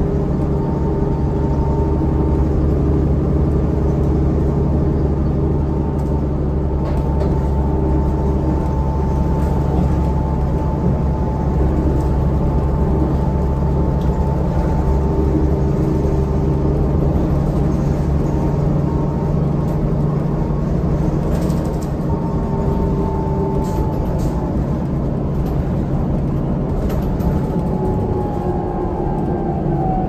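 Cabin sound of a New Flyer D40LFR transit bus under way: its Cummins ISL diesel engine and Allison B400R transmission running steadily, with a steady whine over the engine drone that slides down in pitch near the end. A few light rattles come through now and then.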